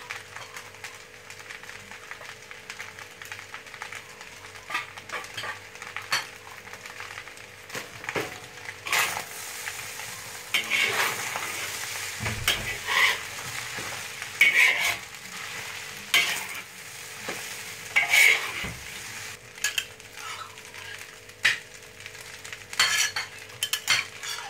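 Metal spatula scraping and tossing rice in a hot wok while it sizzles. It begins with a few light taps over the steady frying, and from about nine seconds in the irregular scrapes and tosses grow louder.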